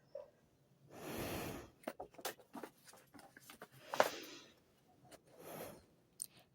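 Pages of a paper book being handled and turned back, with soft paper rustles and a few light taps and clicks.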